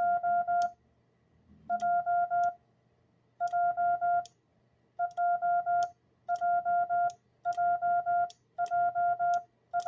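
Morse code sidetone keyed from a Vibroplex iambic paddle: a steady mid-pitched beep sent in about eight groups of four elements, repeating the letter J (dit dah dah dah), with a sharp click at each element.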